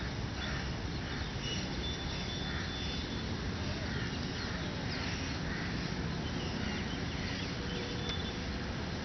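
A steady low rush of outdoor noise with faint bird calls scattered through: short chirps, soft repeated calls and a thin high whistle.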